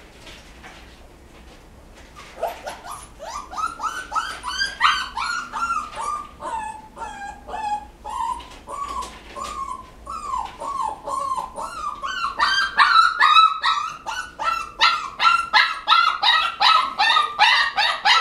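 A young puppy yelping and whining in a rapid string of short, high-pitched cries, two or three a second. The cries start about two seconds in and grow louder after the middle. The puppy is protesting being held on its back in a puppy aptitude test's restraint test.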